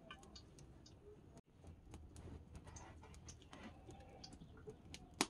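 Faint, scattered small clicks and ticks, with one sharper click near the end.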